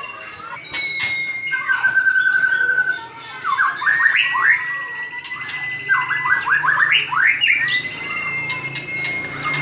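White-rumped shama singing: long, clear whistles held on one pitch, broken twice by quick runs of rising notes, with a few sharp clicks in between.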